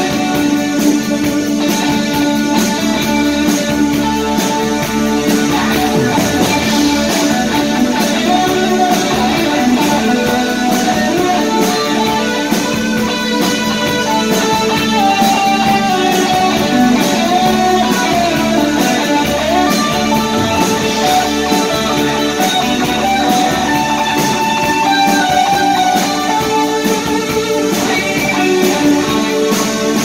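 Live rock band playing: electric guitar over bass, synth keyboard and a steady drum beat.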